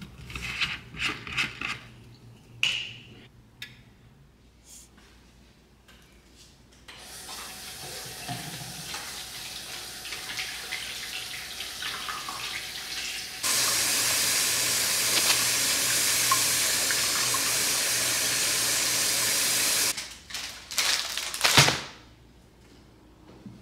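A plastic bottle cap clicked open amid light kitchen clatter, then water running from a kitchen tap, first gently and then at full flow for about six seconds before it shuts off abruptly. A sharp knock follows soon after.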